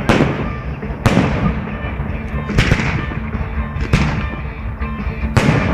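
Fireworks shells bursting overhead: about five loud bangs a second or so apart, each trailing off, with music playing underneath.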